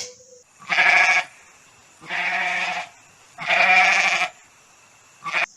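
A goat bleating three times, each bleat about half a second to a second long.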